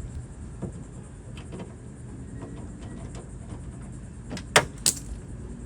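Light clicks and taps of hand work on a Nissan 350Z door, then two sharp metallic clacks about a third of a second apart near the end.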